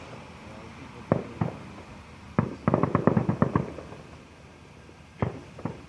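Fireworks display bursting: two single bangs about a second in, a quick rapid-fire volley of bangs in the middle, and a few more bangs near the end.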